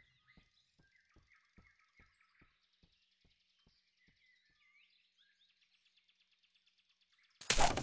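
Quiet forest ambience with faint bird chirps, and a row of soft clicks that come further apart over the first few seconds. Near the end comes a short, loud burst of noise.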